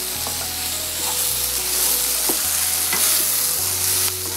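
Sliced onion, karonda and capsicum sizzling in oil in a nonstick kadhai while a wooden spatula stirs and scrapes them, mixing in the salt just added. A steady sizzling hiss with short scraping clicks from the spatula.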